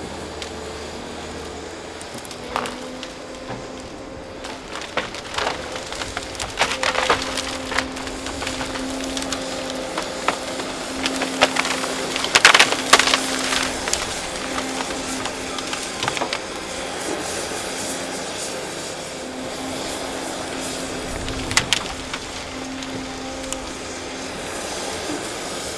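Excavator engine running with a steady hum, while wood cracks, snaps and splinters in a series of sharp breaks, the loudest cluster about twelve to thirteen seconds in.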